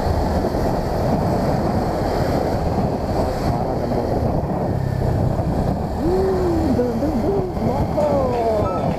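Wind rushing over the microphone of a motorcycle being ridden along a road, with the engine running underneath. A few short gliding tones come through in the last few seconds.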